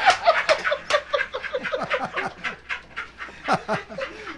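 Several people laughing hard in a quick run of short, falling 'ha' bursts that gradually die down.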